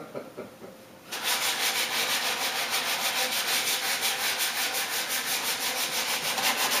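Sandpaper rubbed by hand on the wooden rocking chair's arm and leg in rapid, even back-and-forth strokes, starting about a second in. It is the final stage of sanding, before steel wool and oil.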